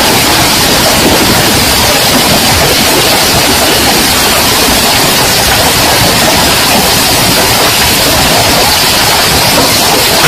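Heavy hailstorm with rain: hailstones and rain falling in a loud, steady hiss with no let-up.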